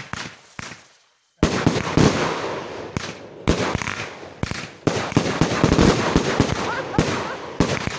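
A ground firework throwing up a column of sparks with a loud, dense crackling full of sharp pops. A couple of short bangs come first, and the crackling starts about a second and a half in and keeps going.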